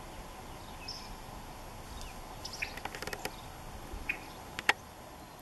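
Birds giving short, scattered chirps over a steady outdoor hiss, with a quick cluster of clicks about halfway through and one sharp click near the end, the loudest sound here.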